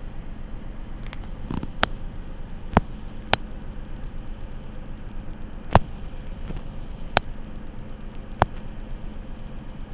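Two male copper pheasants fighting, with about seven sharp, irregularly spaced strikes over the steady rush of a stream.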